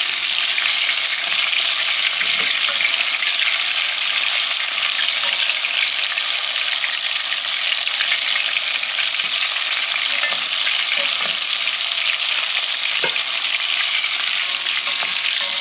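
Battered chicken pieces deep-frying in hot oil in a pot: a steady, dense sizzle, stirred now and then with a slotted spoon.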